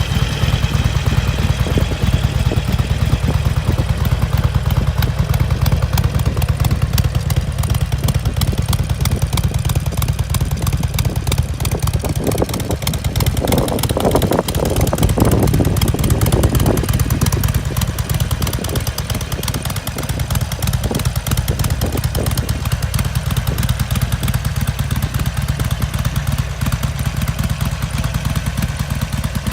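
A 2013 Harley-Davidson Sportster Iron 883's air-cooled V-twin running steadily through its stock exhaust, growing louder and fuller for a few seconds about halfway through.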